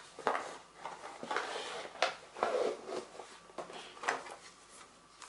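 Small objects being handled and rummaged through in a box of old odds and ends: a string of light knocks, scrapes and rustles at irregular intervals.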